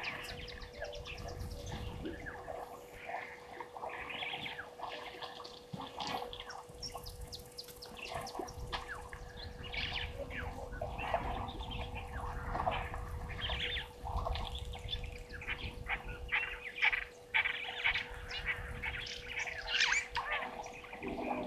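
Several wild birds chirping and calling over one another in short, frequent notes, with a steady faint hum underneath.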